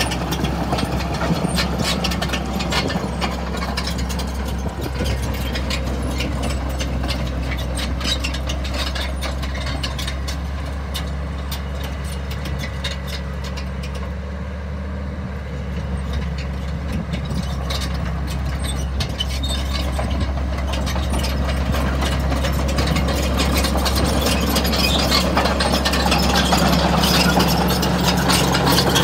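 Caterpillar 941B crawler loader's diesel engine running steadily while its steel tracks clatter and squeak as it drives. The sound fades about halfway through as the machine moves away, then grows louder as it comes back close.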